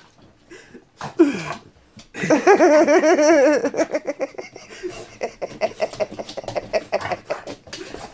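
A person laughing hard for about a second and a half, starting about two seconds in, then trailing off into quieter chuckles mixed with light rapid tapping and scratching from the Boston terrier's claws and the pumpkin on the wooden floor.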